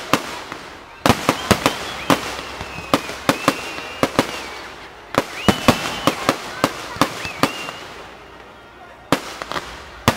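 Fireworks display: rapid volleys of sharp bangs and crackles from aerial shells, with high wavering whistles among them. The bangs thin out near the end, then a fresh volley breaks out.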